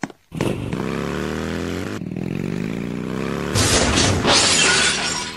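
Motorcycle engine sound effect accelerating, its pitch rising steadily for about three seconds, then a crash with shattering and breaking noise about three and a half seconds in that fades away.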